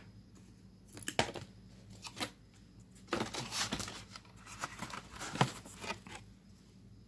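Plastic bread bag crinkling and rustling as it is handled, in irregular bursts with a few louder crackles.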